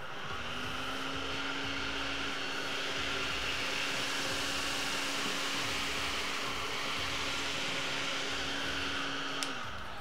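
Miele Triflex HX1 cordless stick vacuum running on its medium suction setting: a steady motor hum with airflow hiss. It starts up just after the beginning and switches off shortly before the end.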